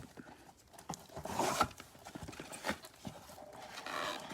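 Trading card packs and cards being handled: a few short bursts of rustling and sliding of paper and foil.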